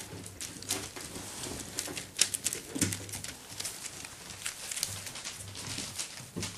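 Seven-week-old Parson Russell Terrier puppies playing on a wooden floor: a rapid, irregular clicking and tapping of claws and toys on the boards.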